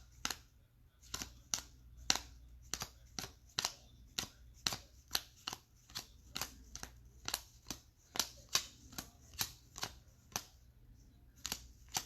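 Trading cards being flicked through one at a time in the hand, each card giving a sharp snap, about two or three a second.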